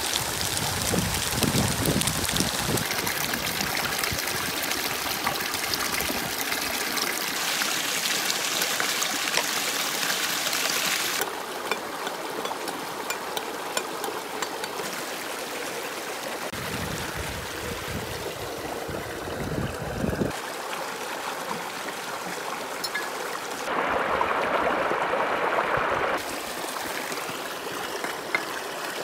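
Stream water rushing and splashing over rocks, a steady wash whose level and tone change suddenly a few times.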